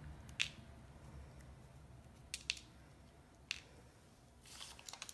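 Faint, sparse clicks of small die-cut cardstock bits being poked out with a pointed tool and dropping onto a wooden table, with a soft rustle of paper near the end.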